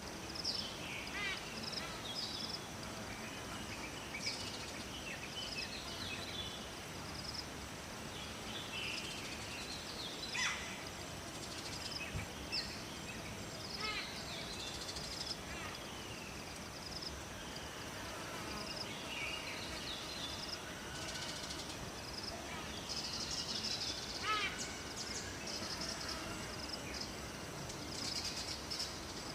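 Several birds chirping and calling, with many short notes and quick downward-sweeping calls, over a steady rush of flowing water.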